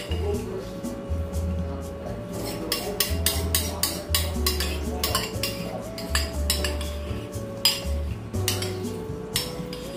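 Background music, a slow melody of held notes over a bass line, with frequent clinks of utensils and dishes being handled during cooking.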